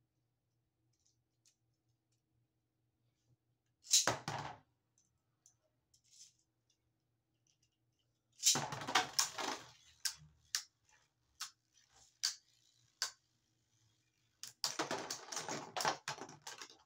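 Beyblade Burst spinning tops launched into a plastic stadium: a short loud launch about four seconds in, another with rattling about halfway through. Then a faint hiss from the spinning tops, broken by separate sharp clicks as they strike each other. Near the end comes a long rapid clatter of hits.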